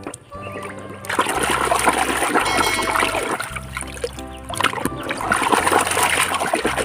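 Water splashing and spraying, loud from about a second in with a short break a little after four seconds, over background music with a steady bass line.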